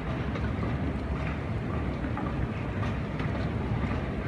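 Steady low rumble of airport terminal ambience while moving through the building, with a few faint clicks.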